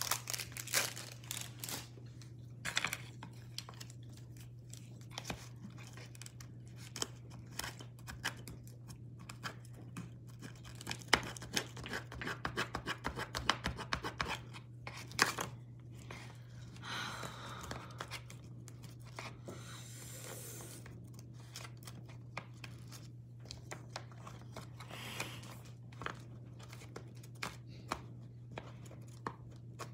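Paper chopstick wrapper rustling and tearing, then scattered small clicks and scrapes of disposable wooden chopsticks picking at food, over a steady low hum.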